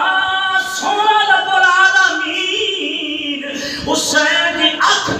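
A man's voice chanting in a melodic, sung style through a microphone and loudspeaker, holding long wavering notes with short breaks for breath.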